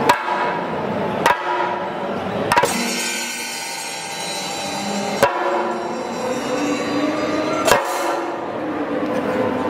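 Chenda drums struck with sticks in single, sharp, widely spaced strokes, about five loud hits a second or more apart, over a steady background din.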